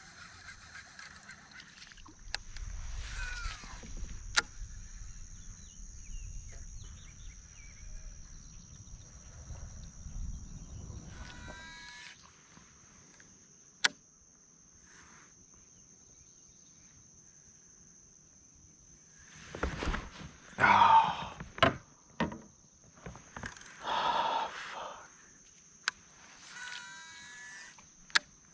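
Outdoor ambience at a lake: a steady high-pitched insect drone, a low rumble for the first twelve seconds, a few sharp clicks, and a cluster of louder animal calls about two-thirds of the way in.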